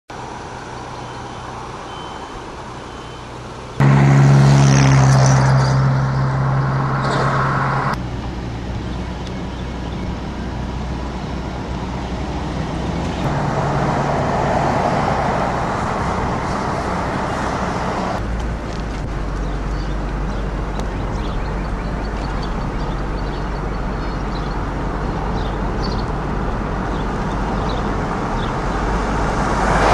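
Motor vehicle and road noise in several separately recorded stretches that change abruptly at cuts. The loudest stretch, from about four to eight seconds in, has a low engine hum.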